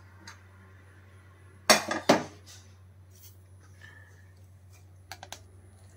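Two sharp metal clanks about two seconds in as a pressure cooker's lid is handled and opened, followed by a few light metallic clicks near the end.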